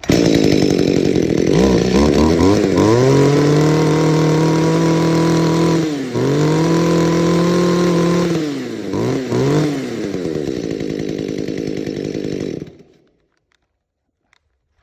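Compact Shindaiwa two-stroke chainsaw engine running as it is test-started: it is revved up twice to a high, steady speed, drops back to a slightly uneven idle, and cuts off about 13 seconds in.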